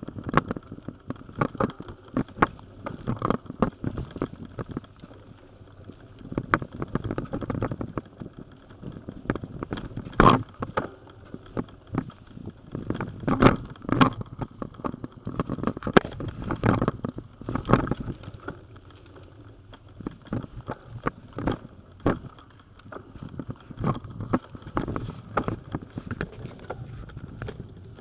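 Bicycle rolling over a rough towpath inside a brick tunnel: tyres rumbling with frequent irregular knocks and rattles from the bike as it jolts over bumps.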